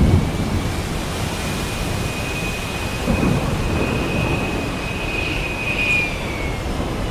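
Heavy rain hissing steadily under low rolling thunder, with a rumble swelling right at the start and again about three seconds in. A thin, high steady whistle runs through the middle of it.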